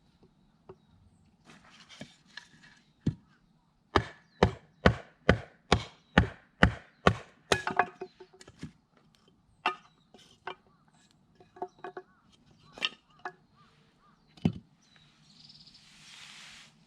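Firewood being split: a quick run of about ten chopping strikes into wood, two or three a second, then a few scattered single knocks.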